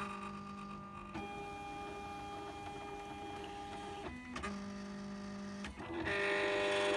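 Silhouette Cameo 3 cutting machine's stepper motors whirring in steady tones as the tool carriage moves and the mat feeds back and forth, reading the printed registration marks. The pitch shifts with each move, about a second in and again near 4 s, and the last run from about 6 s is louder.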